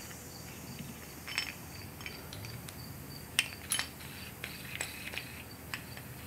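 A few scattered light metallic clicks and clinks from a Stihl leaf-blower engine's crankshaft assembly, its crank, connecting rod and piston being turned and rocked by hand to check the bearings for play.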